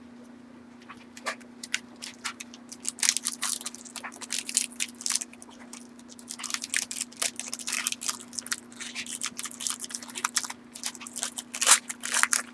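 Foil wrapper of a 2013 Panini Prestige football card pack crinkling and tearing as it is opened and the cards are handled: a dense run of crackles that grows busier about three seconds in and again near the end, over a faint steady low hum.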